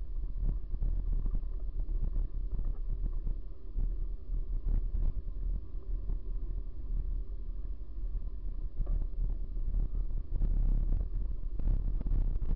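Wind buffeting the microphone of a bicycle-mounted camera, mixed with the low rumble of the bike rolling over rough asphalt and a few knocks from bumps.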